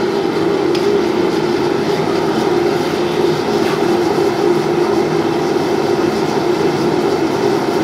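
Gas forge running: a steady, loud rushing noise with a constant hum underneath.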